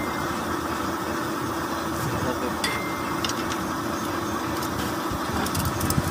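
An engine idling steadily, with a few light metallic clicks scattered through it.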